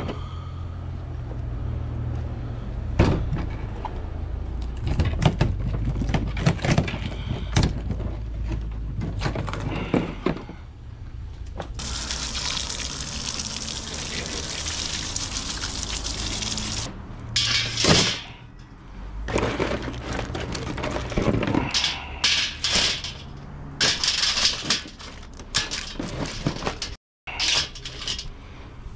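Dungeness crabs being cleaned: a string of cracks and knocks as the shells are broken apart, then a garden hose spraying water over the cleaned crab halves for about five seconds, then shells clattering as the crabs go into a metal steamer basket.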